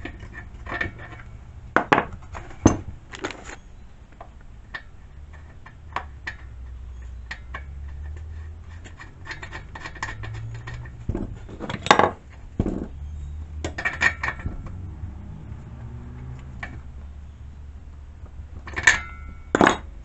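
Metal hand tools and chainsaw parts clinking and knocking during hands-on work on a chainsaw, with irregular small clicks and a few louder knocks, two of them near the end.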